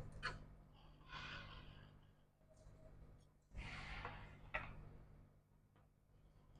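Quiet breathing close to the microphone, with two longer exhales like sighs, a couple of small clicks and a steady low hum underneath.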